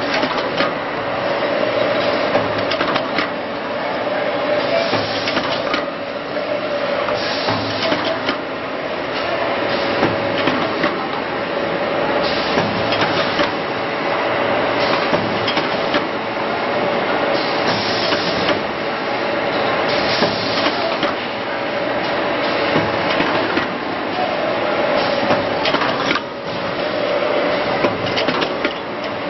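Paper tube curling and notching machine running: a steady mechanical whine under continual clatter and irregular sharp knocks as paper cores feed through and have their ends curled.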